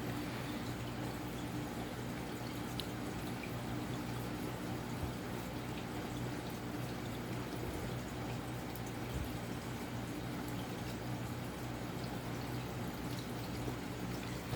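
Casablanca Delta II 52-inch ceiling fan running steadily, a low even motor hum under a soft rush of air.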